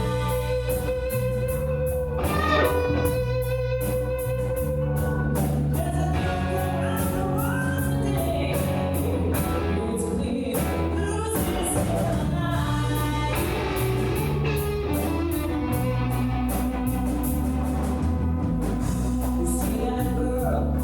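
Live rock band playing a song: sung vocals over electric guitar and bass, with a steady drum and cymbal beat.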